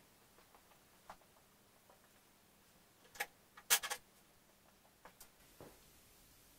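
Scattered faint knocks and clicks of handling in a small workshop, the loudest a short double knock a little past halfway.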